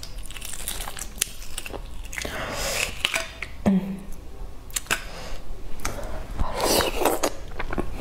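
Eggshell cracking and being picked off a boiled egg by fingers close to the microphone: a run of small sharp clicks and crackles, with patches of chewing in between.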